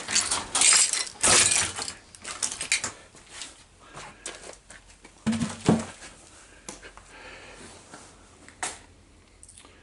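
Footsteps crunching over broken glass and debris, with a run of loud crunches in the first few seconds and then sparser, quieter crunches and clicks.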